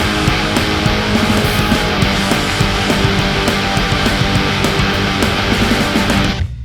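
Loud rock music with a steady drum beat, cutting out briefly just before the end.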